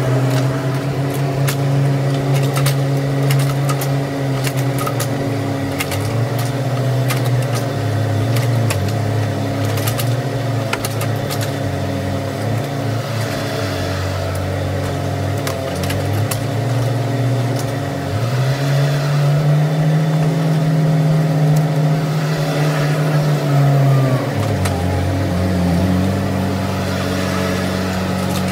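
Bobcat E10 mini excavator's small diesel engine running under hydraulic load as it digs, its pitch rising for several seconds past the middle and then dropping back. Scattered clicks and knocks in the first half.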